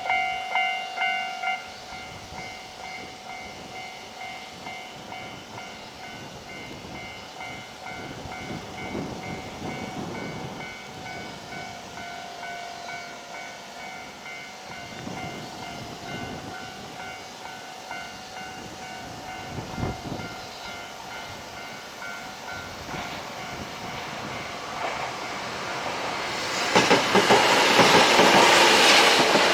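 Japanese level-crossing warning bell ringing in a rapid repeating ding, about two strokes a second, loud at first and then much fainter after a couple of seconds. It fades out, and near the end a train passes close by with loud wheel and rail noise.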